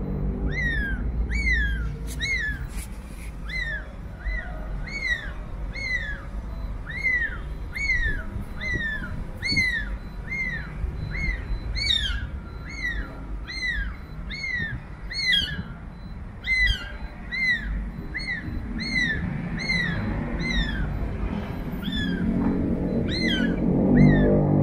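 Week-old kitten mewing over and over, about two thin, high calls a second, each rising and falling: the isolation cry of a newborn kitten calling for its mother. A lower-pitched sound swells near the end.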